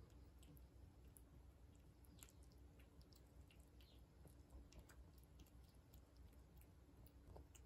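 A calico cat eating wet food from a ceramic bowl: faint, irregular small wet clicks of chewing.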